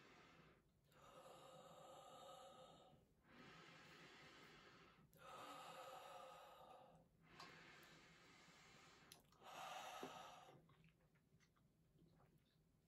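A person breathing slowly while holding a huge bubblegum bubble at the lips: five long, airy breaths of about two seconds each, back to back, stopping about three-quarters of the way through.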